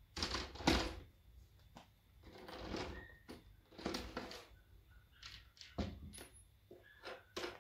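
Irregular knocks, clinks and scrapes of hard parts being handled and moved about, the loudest knock near the start.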